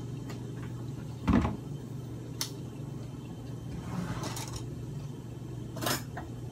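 Kitchen handling sounds: one soft thud about a second in, then a few light clicks and some rustling, over a steady low hum.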